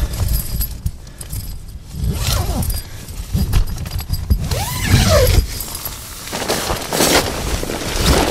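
Rustling and scuffing of nylon tent fabric and dry leaves in several bursts as a man crawls into a small one-man tent, with a brief falling squeak about five seconds in.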